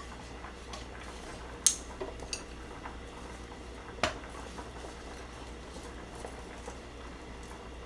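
Wooden chopsticks tapping and clicking against a non-stick frying pan as a slice of toast is lifted and turned: a few sharp clicks, the loudest about two seconds in, over a low steady hum.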